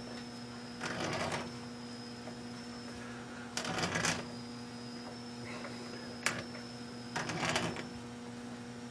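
Hand tap cutting a 1/4-20 thread in brass, turned in and out with a tap handle: short rasping scrapes every few seconds, with a sharp click about six seconds in, over a steady electrical hum.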